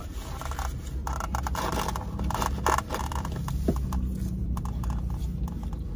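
Close-miked eating sounds: chewing and food handling, with irregular clicks, scraping and rustling, over a steady low hum.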